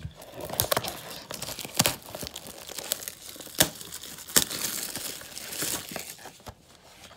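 Plastic wrapping crinkling and tearing as a football trading-card blaster box is opened, a steady crackle broken by several sharp snaps.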